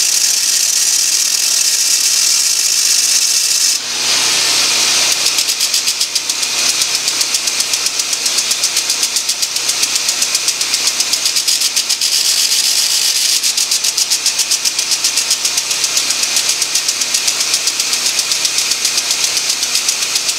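Small engine running on a Sears Suburban garden tractor. About four seconds in the sound dips briefly, then carries on with a fast, even pulse.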